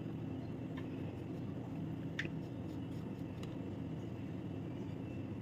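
Kitchen knife scraping chocolate level on a silicone chocolate mold: a few faint clicks and a brief squeak about two seconds in, over a steady low hum.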